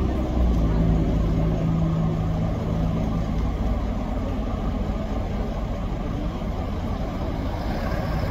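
Street traffic: vehicle engines running and passing, with a low engine hum that fades away about three seconds in.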